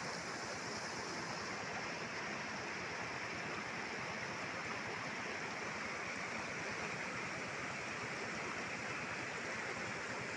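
Steady rushing of a shallow, rocky river, with no breaks or single events.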